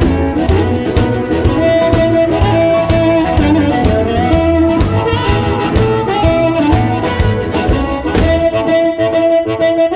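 Electric blues instrumental led by amplified blues harmonica playing long held and bent notes over electric guitar, bass and a steady drum beat. About eight seconds in, the drums and bass drop out and the harmonica carries on over the guitar.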